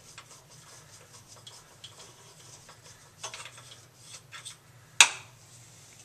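Faint scrapes and light ticks of a coffee grinder's grind chute being cleaned out by hand, with one sharp click about five seconds in.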